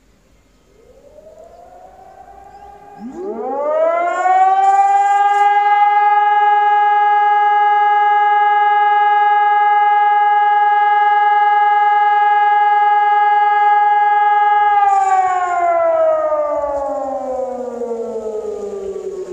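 Hörmann ECN 1200 electronic civil-defence siren sounding its test signal: after a fainter rising tone about a second in, it rises over about two seconds to a loud steady tone, holds it for about ten seconds, then slowly falls in pitch.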